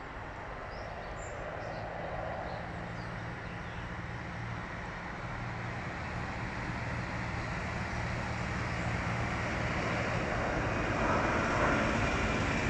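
Tractor engine approaching: a steady low engine drone that grows gradually louder.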